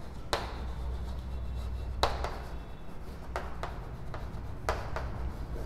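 Chalk writing on a chalkboard: a handful of sharp, irregular taps as the chalk strikes the board, with light scraping between strokes.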